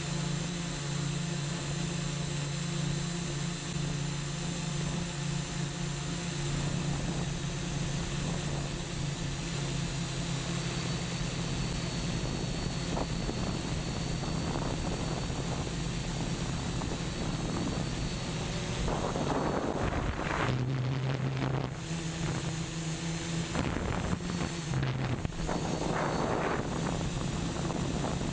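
Eight brushless motors and 10-inch propellers of a 3D-printed octocopter in flight, heard from its onboard camera: a steady propeller hum with a thin, high, steady whine above it. About twenty seconds in, and again near twenty-five seconds, the hum briefly drops in pitch, with bursts of rushing wind noise.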